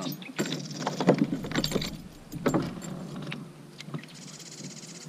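Irregular knocks, clinks and rattles of fishing tackle and a fish being handled in a kayak, then, near the end, a spinning reel whirring briefly with a fast, even rattle as the line is wound in.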